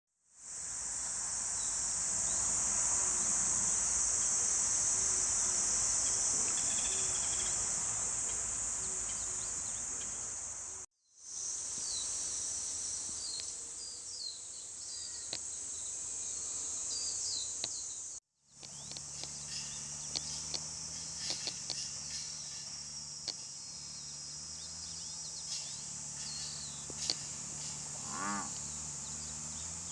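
A dense chorus of cicadas: a steady, shrill, high-pitched drone with birds chirping through it. The sound cuts off sharply twice, about 11 and 18 seconds in. After the second break a low steady hum runs underneath.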